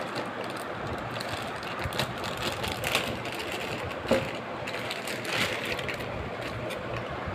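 Clear plastic packaging bag crinkling in a few short bursts as hands pull a power adapter out of it, over a steady background hiss.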